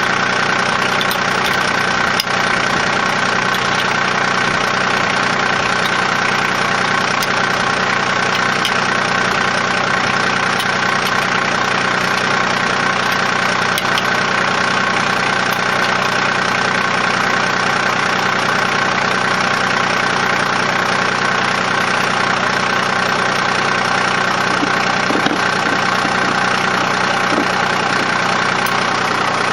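John Deere 2305 compact tractor's diesel engine idling steadily.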